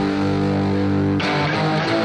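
Background music with held guitar chords that change about a second in.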